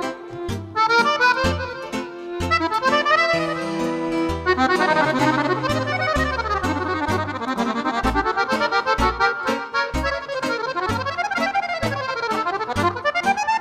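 Button accordion played solo in a fast folk tune: quick melodic runs on the treble side over a steady oom-pah of left-hand bass notes and chords.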